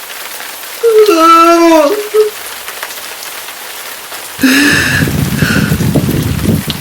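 Steady rain, with a man crying over it twice: a wavering wail about a second in, then a longer sob from the middle to the end.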